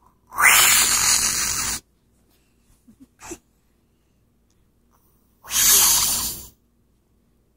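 Two long breathy rushes of air close to the microphone, the first about a second and a half long just after the start, the second about a second long past the middle.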